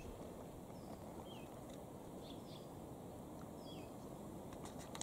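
Faint bird calls: a short downward-sliding chirp repeated three times a second or two apart, with a few other brief high notes, over a low steady hiss. A few sharp clicks near the end.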